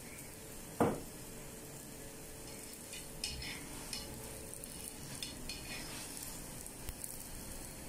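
Lachha paratha frying in oil on a hot tawa with a faint steady sizzle. A spatula knocks sharply against the tawa about a second in, then scrapes and pokes at the paratha in short strokes.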